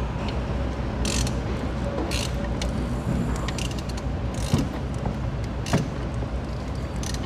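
A 1.6 diesel engine running steadily, with occasional sharp clicks or knocks, and a timing-belt tensioner bearing that has started to make noise: a sign that the bearing is worn and the timing belt set is due for replacement.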